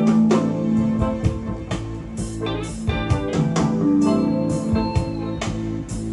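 Music with a beat played loudly over a hi-fi system driven by a Sansui BA-2000 power amplifier. The music is picked up by a camera microphone that distorts at this volume.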